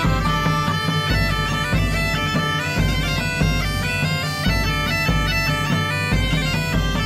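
Bagpipe music: a fast stepping melody played over a steady drone.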